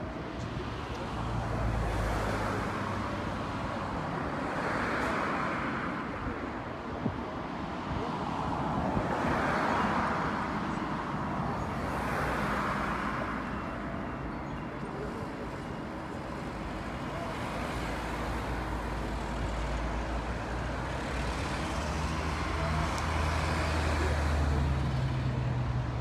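Distant V10 engine of a three-seater Formula 1 car lapping out of sight, swelling and fading several times as it moves around the circuit.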